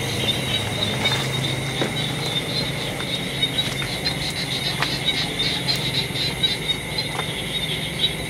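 Crickets trilling steadily in a night-time insect chorus, with a few faint clicks.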